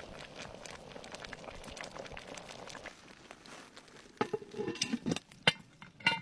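A pot bubbling and crackling at the boil for about three seconds. Then, from about four seconds in, come a few sharp clinks and short pitched squeaks.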